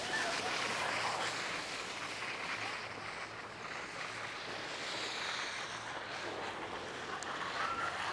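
Steady rushing hiss of wind on the microphone, a little louder in the first second.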